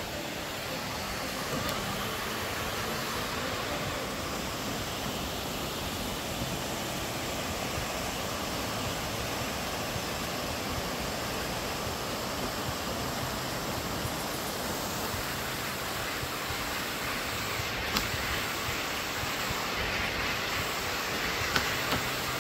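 Waterfall on a mountain creek: a steady, even rush of falling water, with a few brief clicks near the end.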